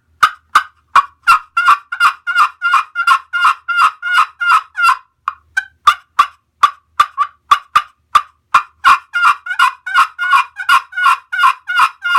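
Frying-pan copper pot turkey call played with a bloodwood striker, making runs of wild hen turkey yelps at about three to four notes a second. A few spaced single notes around the middle break the two runs.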